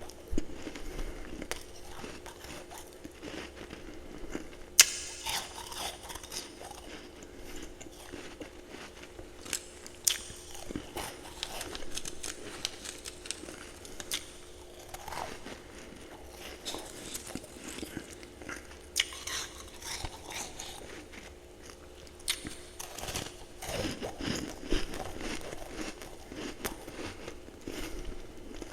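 A person biting and chewing ice and frost at the microphone: irregular crisp crunches, with the sharpest bites about five seconds in and again near ten seconds. A steady low hum runs underneath.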